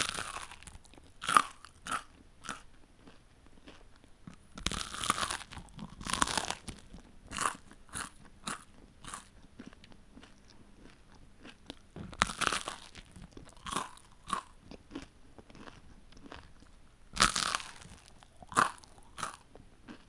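A person biting into and chewing crunchy food: irregular sharp crunches every few seconds, the loudest at each bite, with quieter crackling chews between them.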